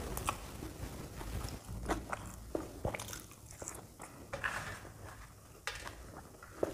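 Close-miked chewing and biting of puri with spicy potato curry, a run of wet mouth smacks and soft crunches at irregular intervals.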